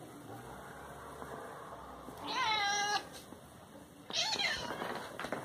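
Domestic cat meowing twice: a longer meow about two seconds in that rises and then holds, and a shorter one about four seconds in.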